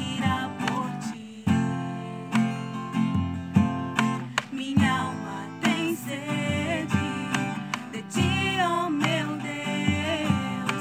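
Acoustic guitar strumming chords while young female voices sing a worship song, the melody rising and falling with some vibrato.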